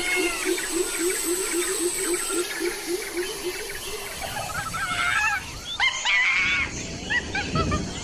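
Several birds chirping and warbling in short whistled phrases over a low call that repeats about five times a second and stops about halfway through. The chirping grows busier and louder near the end.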